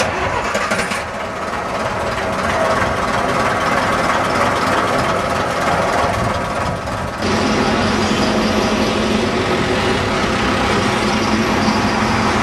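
Bus engines running close by: a small single-deck bus idling and moving off, then an abrupt change about seven seconds in to a steadier engine hum of a bus in street traffic.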